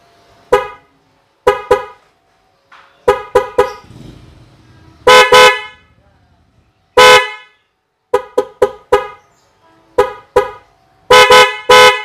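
Bosch snail-type car horns sounding in a string of blasts: short single toots, quick runs of two to four toots, and a few longer blasts, the longest near the end.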